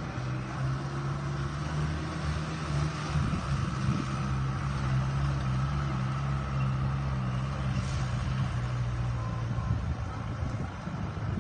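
A gas delivery truck's engine runs steadily under load as the truck climbs a steep street, a low drone that eases off near the end.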